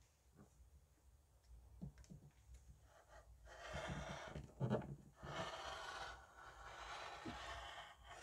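Rotary cutter blade rolling through two stitched-together squares of quilting cotton along an acrylic ruler, making a steady cutting noise through the second half. A few light taps and knocks come before it as the ruler is set in place.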